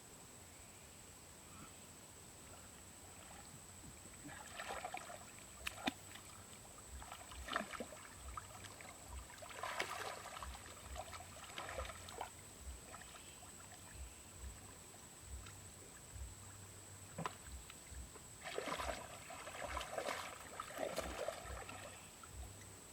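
Water splashing and sloshing in shallow water in irregular bursts, with short dull thumps among them. It starts after a few quiet seconds, eases off in the middle and picks up again near the end.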